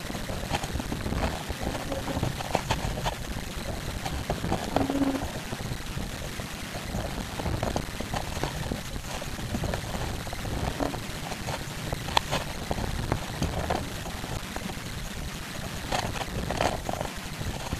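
Water rushing and splashing along the hull of a wooden rowing boat under way, with scattered clicks and knocks from the oars and sliding seat.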